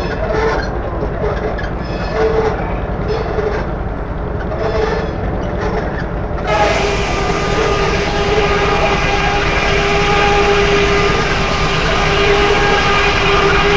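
Steam-powered sawmill running. A tone comes and goes about once a second at first; about six and a half seconds in, a louder steady tone with a hiss sets in and holds.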